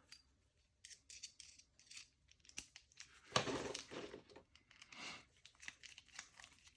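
Quiet handling of a small PO box cam lock and its key: scattered light metal clicks and scrapes, with a longer scraping rustle about three and a half seconds in and another around five seconds.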